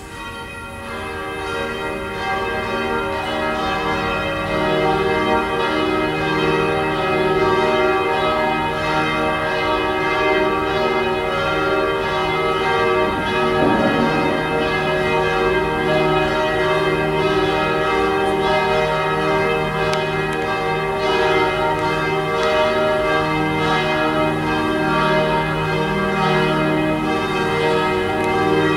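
Church bells ringing together in a full peal, many overlapping bell tones sounding on and on. The sound swells over the first few seconds, then holds steady and loud.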